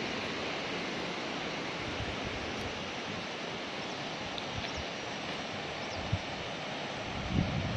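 Steady rushing of a rocky river flowing below, with a short low buffet of wind on the microphone near the end.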